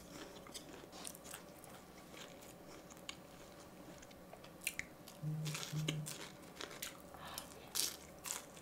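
Close-miked chewing of a crispy batter-coated corn dog dipped in tteokbokki sauce, with scattered crunchy bites, more of them in the second half. Two short low hums come a little after five seconds in.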